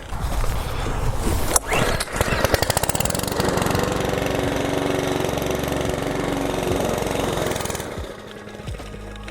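Mountfield rotary lawn mower's petrol engine pull-started: it sputters, catches and runs steadily for about five seconds, then cuts out near the end. This is the stalling fault, which the owner puts down to either the carburettor or the valve clearances.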